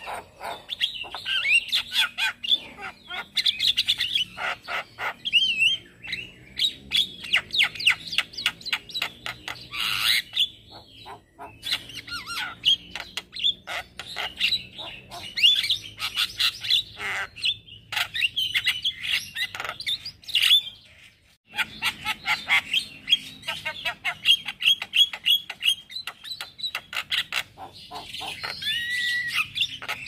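Male Javan myna in chattering song: a fast, unbroken run of clicks, whistled notes and harsh squawky notes that breaks off briefly about two-thirds of the way through, then resumes.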